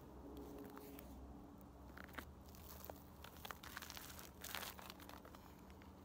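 Faint crunching and rustling of a person stepping onto lake ice, kneeling and handling an ice-fishing tip-up, with a few light clicks and a short louder rustle about four and a half seconds in.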